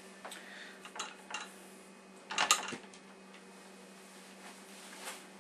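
Several light clinks and knocks of painting tools against hard containers, the loudest cluster of knocks about halfway through, over a steady low hum.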